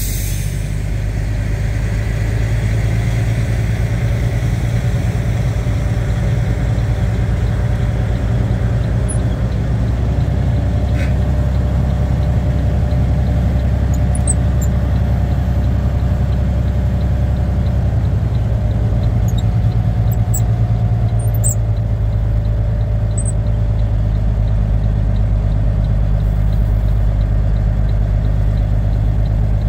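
Volvo VNL780 semi truck's diesel engine running steadily at low revs, heard from the cab as the truck moves slowly across a lot.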